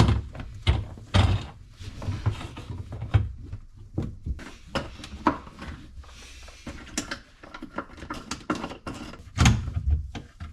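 Rag wiping the inside walls of a dishwasher tub: irregular rubbing and scrubbing broken by knocks and clunks against the tub and door.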